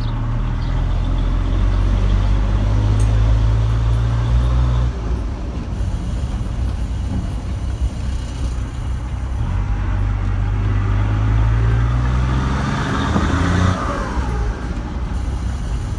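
Chevrolet Silverado's MWM six-cylinder turbodiesel, breathing through a 'pente' T-model exhaust, giving a deep loud drone as the truck pulls under power. The drone drops off abruptly twice, about five seconds in and near the end, as the throttle is lifted.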